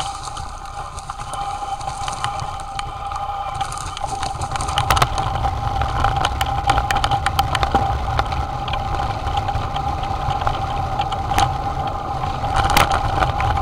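Mountain bike descending a dirt trail: wind buffeting on the microphone and the bike rattling, with many sharp clicks and knocks as the tyres run over rough ground, busier from about four seconds in. A steady thin whine runs underneath.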